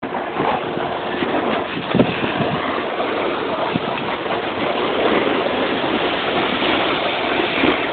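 Snowboard sliding and scraping over packed snow while riding downhill, with wind rushing over a handheld phone's microphone. One sharp knock about two seconds in.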